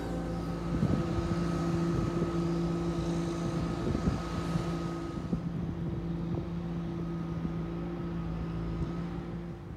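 A steady motor hum on one unchanging pitch, with gusts of wind buffeting the microphone.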